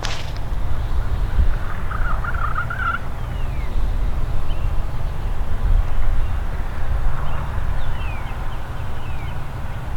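A wild turkey gobbling once, about two to three seconds in, over a steady low rumble. A few short falling bird chirps come through later.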